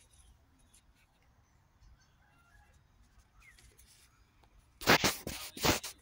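Faint, sparse bird chirps over quiet outdoor background, then near the end about a second of loud rustling and crackling close to the microphone, in a few quick bursts.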